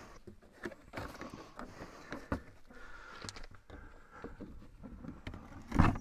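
Faint scattered clicks and light knocks of hands working on the steel blade housing of a Norwood LumberMate sawmill, with a louder thud near the end as the blade-wheel cover is reached.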